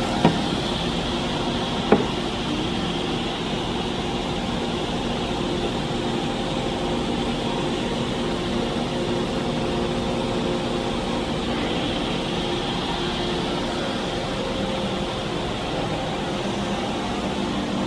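Brandt KD66 edgebander running, with its dust extraction, as a steady mechanical hum carrying several steady tones. Two sharp knocks come in the first two seconds.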